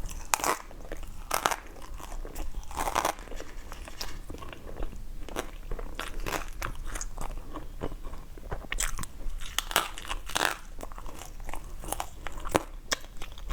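Close-miked crunchy bites and chewing of food, a series of irregular loud crunches with quieter chewing between them.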